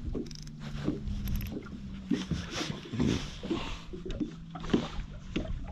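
Small waves slapping irregularly against an aluminum boat hull, a knock every half second or so, over a steady low hum.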